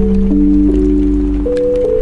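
Background music: slow, held notes changing about once a second over a steady low bass.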